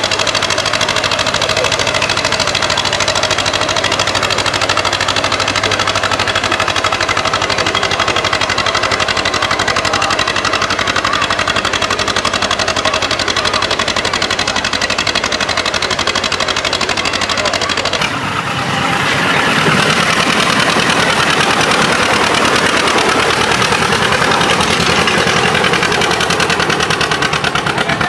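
Tractor engine running steadily. About eighteen seconds in, the sound changes suddenly to a louder, harsher engine noise, which runs on to the end.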